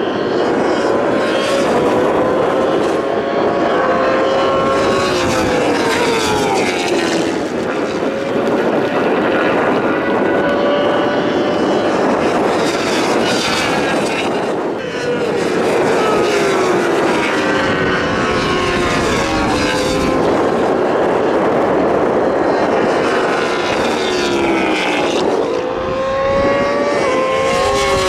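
Superbike and supersport racing motorcycles passing one after another at high revs, their engine notes held high and then dropping in pitch as each goes by.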